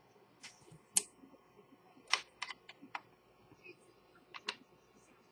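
Small sharp clicks and taps of a watchmaker's fine metal tool against a wristwatch's dial, hands and movement holder. They come irregularly, about nine in all, with a quick run of several in the middle.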